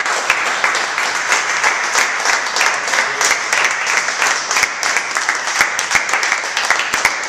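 Applause from a group of people: many hands clapping in a dense, steady patter that starts abruptly.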